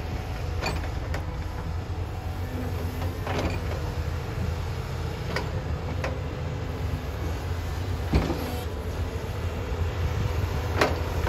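Caterpillar 320D excavator's six-cylinder diesel engine running with a steady low drone. About seven sharp knocks are scattered through it as the bucket works in broken rock.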